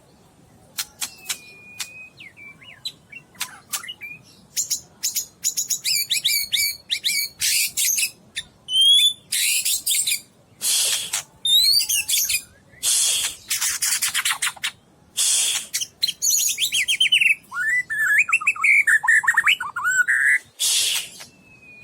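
Male white-rumped shama (Medan Murai Batu) singing a loud, varied song: short whistled glides and rapid trills mixed with many brief harsh, rasping notes, packed with mimicked phrases.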